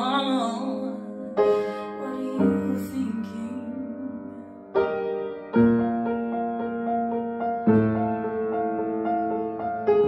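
A young woman's sung note with vibrato fades out at the start, then a piano plays slow sustained chords alone, a new chord struck every one to two seconds and left ringing.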